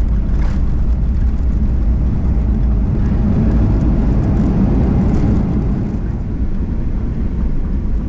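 Steady low rumble of a Boeing 737-800 airliner's engines and airframe.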